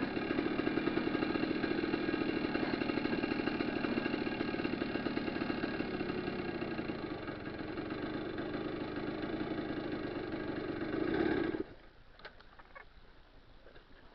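Motorcycle engine running steadily at low revs, then switched off abruptly about three-quarters of the way through.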